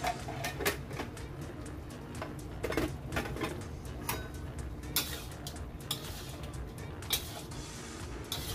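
Background music under a steady low hum, with scattered sharp clicks and pops from the wok of simmering spare ribs.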